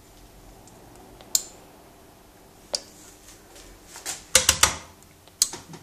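Sharp switch-like clicks on a radio workbench: single clicks about a second and a half and nearly three seconds in, a quick run of three about four and a half seconds in, and one more near the end, over a faint steady hum.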